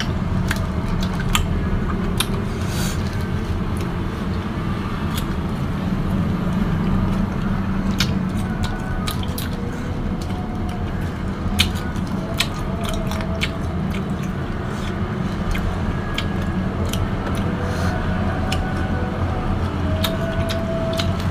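Biting and chewing of fresh, juicy mango slices, with many short wet clicks and smacks scattered throughout, over a steady low background rumble.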